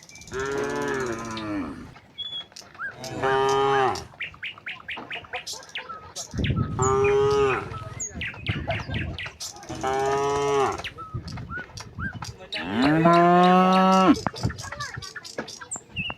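Domestic cattle mooing, several cows calling back and forth: five long moos about three seconds apart, each at a different pitch, with small birds chirping between the calls.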